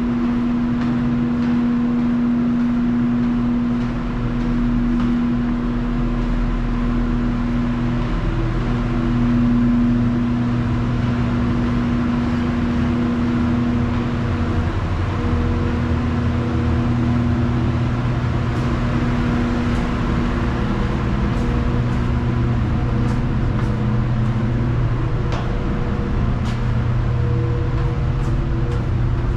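A loud, steady hum with a constant low tone, with faint footsteps of someone walking down a spiral staircase.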